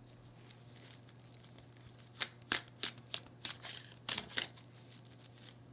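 Tarot cards being shuffled by hand: a run of quick, sharp card flicks and riffles starting about two seconds in and stopping a second before the end, over a faint steady low hum.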